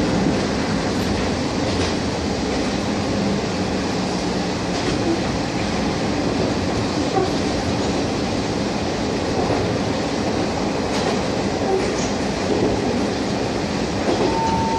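Cabin noise of the KiHa 001 diesel railcar running along the line: a steady rumble of engine and wheels on rail, with a few light clicks over the rail joints. A short steady tone sounds near the end.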